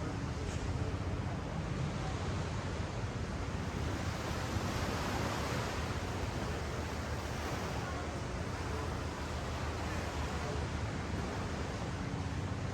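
Ocean surf washing up and back on a sand beach, a steady wash that swells a little about halfway through.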